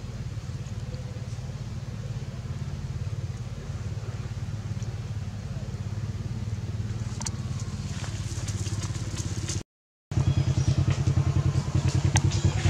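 A small engine running steadily at idle with an even low pulse, with sharp clicks over it in the second half. The sound cuts out for a moment about ten seconds in, then returns louder with a stronger beat.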